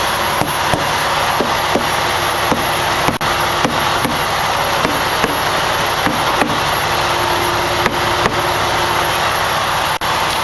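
Steady loud engine noise from a large vehicle running close by, with faint ticks every half second or so.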